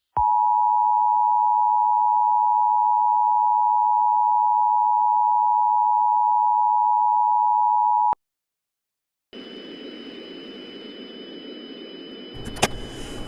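Emergency Alert System attention signal: the two-tone 853 and 960 Hz alert tone, held steady for about eight seconds, then cut off abruptly. After a second of silence, a steady hiss with faint high whines comes in, with a click near the end.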